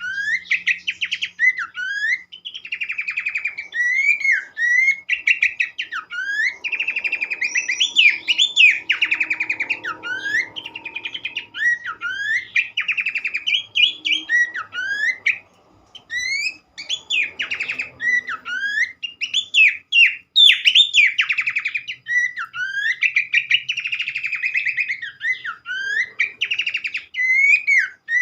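Horsfield's babbler (pelanduk semak) song: fast chattering runs of notes mixed with sliding whistled phrases, going on almost without a break apart from a short pause about halfway through.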